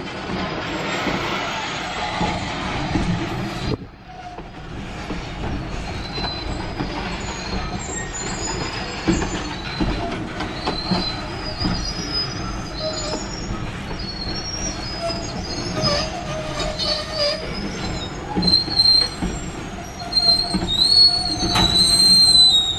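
Freight train of open-top hopper cars rolling past: a steady rumble and clatter of steel wheels on rail, with wheel squeal in high, wavering tones that come in partway through and grow loudest near the end.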